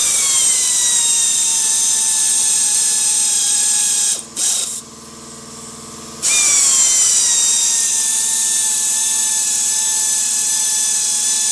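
Pneumatic air ratchet on a long extension spinning crankcase bolts into a Sea-Doo 951 two-stroke engine case. It runs in two long bursts with a break of about two seconds partway through, and the whine sags a little in pitch at the start of each burst as the bolts run down.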